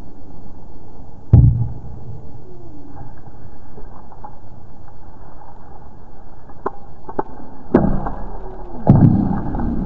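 Machete striking a bamboo post: one sharp knock about a second in, a few light taps, then several heavier strikes near the end.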